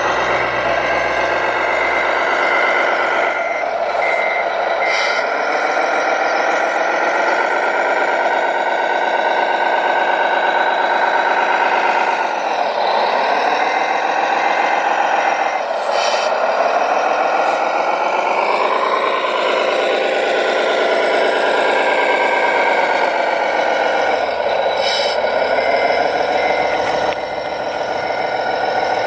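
RC construction machine running with a pitched mechanical whine that dips and recovers several times. A reversing beeper sounds in pulses during the first few seconds and again near the end.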